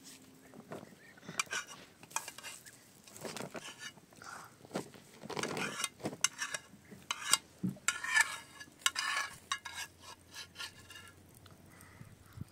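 Metal pots, bowls and utensils clinking and scraping irregularly, like a spoon stirring and scraping in metal cookware, busiest in the middle.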